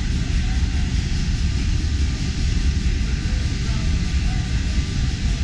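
Liberty ship's triple-expansion steam engine running under way, amid the engine room's machinery: a loud, steady mechanical din with a deep rumble.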